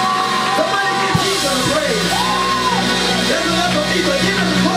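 Live gospel praise music from a church band, with steady held bass notes, and voices singing and shouting over it.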